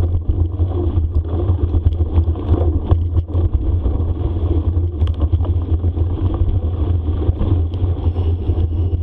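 Steady low rumble with scattered knocks and rattles: a bicycle ridden fast over a rough forest trail, with wind buffeting the microphone.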